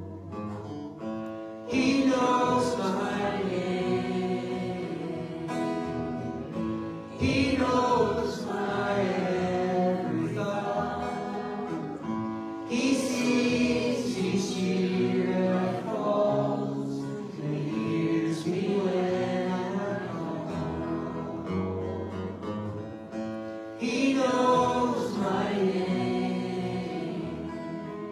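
A group of voices singing a gospel song together.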